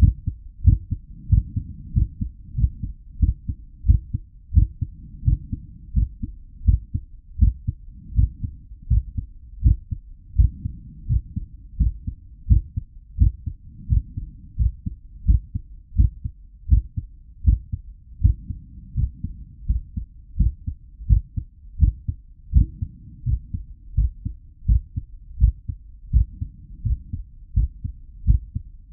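Recorded human heartbeat at a medium rate: a steady, even rhythm of low, muffled thumps, each beat a close pair.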